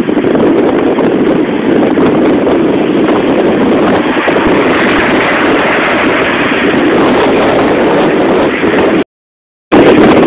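Gale-force wind buffeting the camera microphone: loud, steady wind noise. It cuts out abruptly for about half a second near the end, then comes back.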